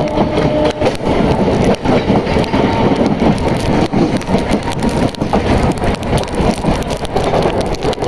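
Electric multiple unit (EMU) local train running at speed, heard from its open doorway: continuous wheel-and-track rumble with rapid clattering knocks and a dense rush of wind and rain.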